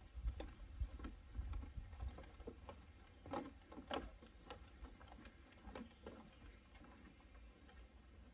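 Footsteps on a wooden boardwalk deck: scattered knocks and scuffs on the planks, with low thuds during the first couple of seconds.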